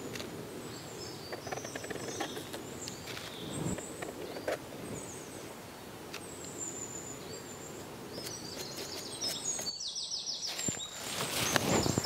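Small woodland birds chirping with many short, high calls over a soft background hiss, with a few faint clicks; the calls break off briefly about ten seconds in, and a louder rushing noise builds near the end.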